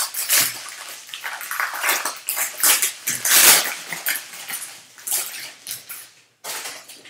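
Baseball-card pack wrapper crinkling and tearing as it is pulled open by hand, in a run of short, irregular rustling bursts that thin out near the end.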